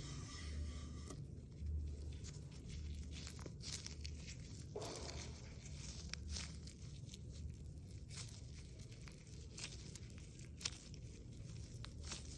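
Thick acrylic paint being stirred and scraped with a paint tool: sticky, crackly scraping with scattered small clicks and a brief swish about five seconds in, over a low hum.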